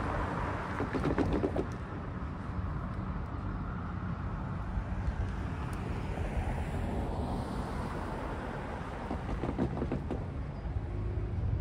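Cars driving over a railroad grade crossing: one passes about a second in and another near the end, each giving a few short knocks as its tyres cross the rails. Low wind rumble on the microphone runs underneath.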